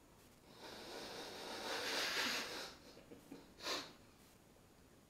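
Noisy breathing through the nose while drinking: a long hissing breath of about two seconds that swells, a few faint ticks, then a short sharp snort near the end.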